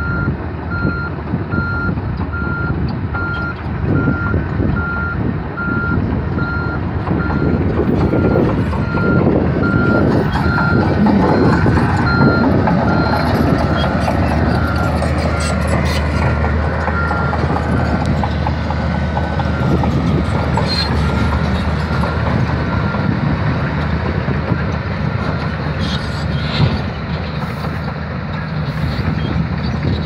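Komatsu D155A crawler bulldozer's diesel engine running, with its reverse alarm beeping steadily until about two-thirds of the way through, the sign that the dozer is backing up. The engine grows louder for a while around the middle as the machine passes close.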